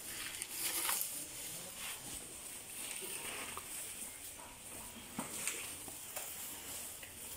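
Asian elephant feeding on cut grass: irregular rustling and crackling of the fodder as the trunk gathers it and she chews, with scattered soft clicks.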